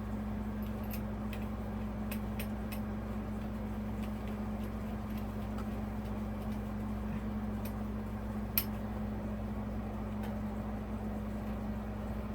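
Small scattered clicks and taps of parts and screws being handled during a ceiling fan installation, one sharper click about eight and a half seconds in, over a steady low hum.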